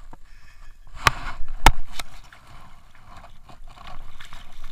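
Water splashing as a hooked trout thrashes at the surface beside the landing net, with two sharp knocks about half a second apart near the start of the splashing.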